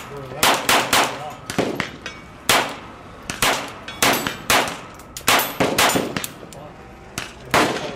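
Beretta M9-22 .22 LR semi-automatic pistol fired shot after shot at uneven intervals, about two shots a second, some shots fainter than others.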